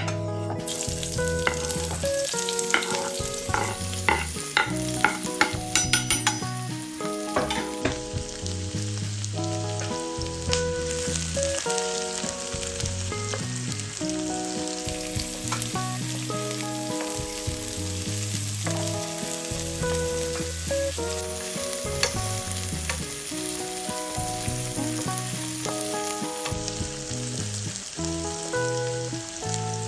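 Food sizzling as it fries in a pan, with a run of sharp clicks a couple of seconds in from a utensil stirring it, over light background music.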